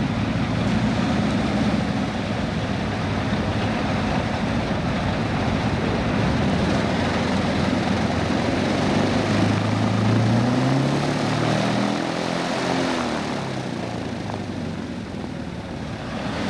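Lockheed P-38 Lightning's twin Allison V-12 engines running on the ground with propellers turning, a steady engine and propeller drone. About two-thirds of the way in, the engine pitch rises and then falls.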